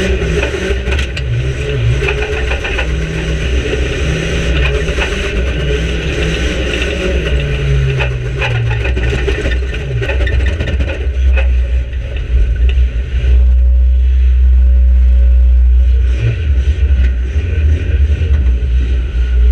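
Inside a stripped-out micro banger racing car: the engine revs up and down as it is driven hard, with a heavy low rumble swamping the sound for a few seconds past the middle. Short knocks and rattles come from the bare body shell.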